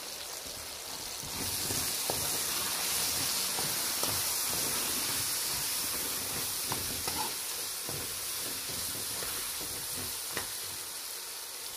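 Potatoes, peas, carrots and onion with spices sizzling in oil in a kadai while being stirred with a metal spoon, with a few clicks of the spoon against the pan. The sizzle grows louder about a second and a half in.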